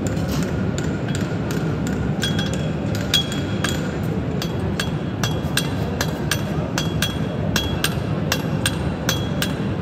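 Farrier's hammer striking hot horseshoe iron on an anvil in steady blows, about three a second, each with a short metallic ring, over a steady background hum.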